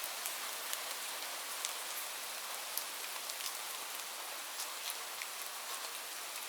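Light rain falling: a steady soft hiss with scattered individual drops ticking sharply on a surface.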